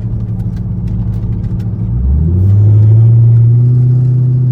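C5 Corvette's V8 engine and road noise heard from inside the cabin while driving; about two seconds in, the engine note rises and gets louder as the car accelerates, then holds steady.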